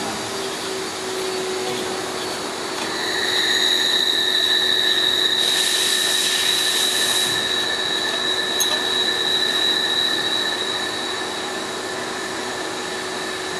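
A steady machine hum with a high whine that comes in about three seconds in, and a burst of hiss lasting under two seconds about six seconds in.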